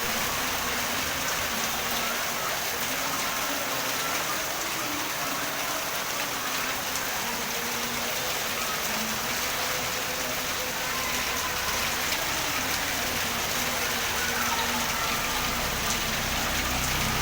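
Heavy rain falling on streets and surfaces: a steady, even hiss of rain.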